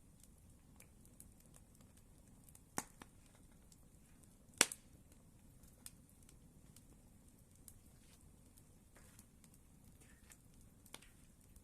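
Campfire burning, wood crackling with scattered sharp pops over a faint steady hiss; the loudest pop comes about halfway through.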